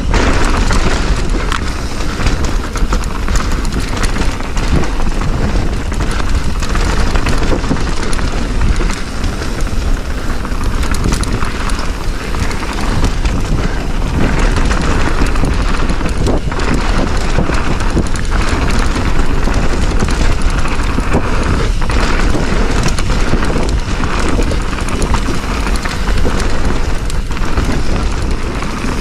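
Mountain bike riding down a dirt bike-park trail: a steady rush of wind and tyre noise, with a few sharper knocks from the bike hitting bumps, about two-thirds of the way in and again near the end.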